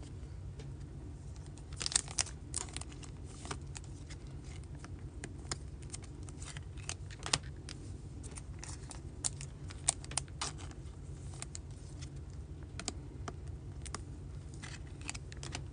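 Stack of baseball trading cards being flipped through by hand, card stock sliding and flicking off the pile. It comes as irregular small clicks and snaps, with a few louder flicks about two, seven and ten seconds in.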